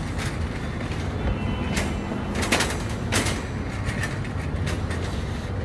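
Metal shopping trolley rolling over a tiled supermarket floor: a steady low rumble with several sharp rattling clicks, the loudest about two and a half and three seconds in.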